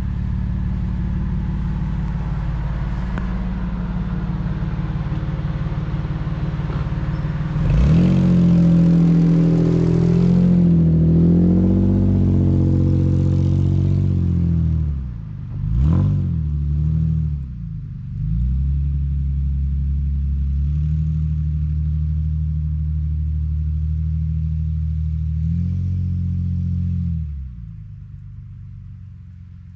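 Nissan Frontier pickup engine running steadily, then revving up sharply about a quarter of the way in and holding higher revs with the pitch wandering, with a quick rev and drop midway. It settles into a steady higher run before the engine sound falls away near the end.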